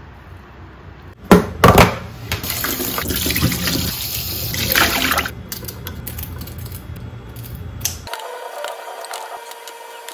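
Tap water running into a stainless steel kitchen sink for about three seconds, after two sharp knocks. Faint steady tones of music come in near the end.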